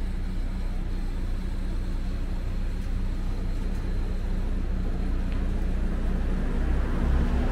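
City street ambience: a steady low hum of vehicle engines and traffic, with a faint background hubbub.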